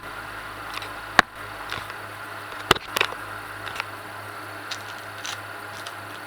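A few sharp clicks and taps from a plastic laptop being handled: one strong click about a second in, two more close together near three seconds, then fainter ones, over a steady low hum.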